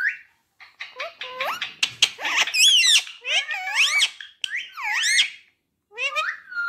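Rose-ringed (Indian ringneck) parakeet chattering: a run of short squeaky calls and whistles that sweep up and down in pitch, with brief pauses between them.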